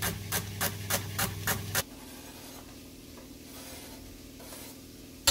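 Kitchen knife slicing celery thinly on a plastic chopping board, quick regular chops about four a second. They stop suddenly a little under two seconds in, leaving a quieter low steady hum.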